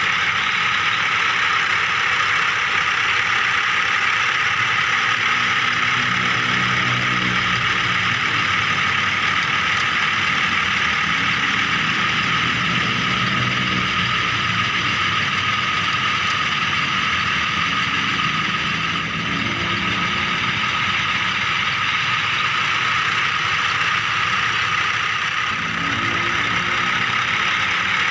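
Remote-control toy vehicle running with a steady high mechanical whine, with a lower hum that rises and fades a few times.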